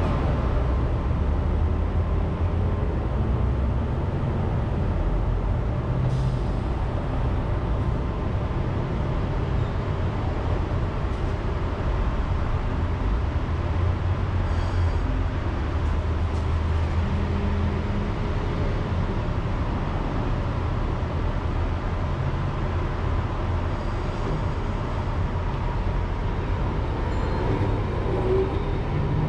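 Kumamoto city tram close by at the stop, its onboard equipment giving a continuous low rumble and hum with a faint steady tone that neither rises nor falls.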